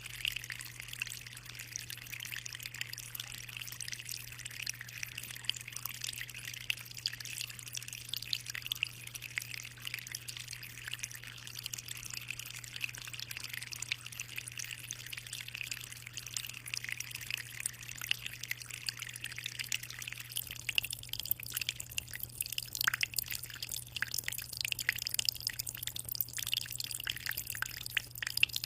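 Aquarium water trickling and splashing at the surface in a constant stream of small drips over a steady low hum. In the last third the drips turn sharper and more distinct.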